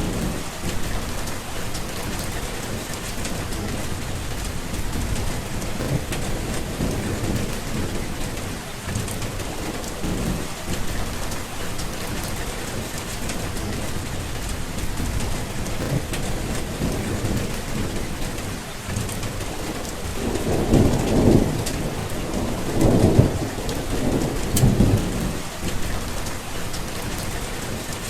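Steady rain falling, with low rolling thunder underneath. About two-thirds of the way through, the thunder swells into three louder rumbles in quick succession.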